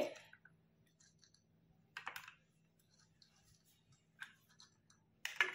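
Boiled black chickpeas dropped by hand into crisp fried puri shells on a steel plate: a few light clicks and patters, about two seconds in, again near four seconds, and just before the end.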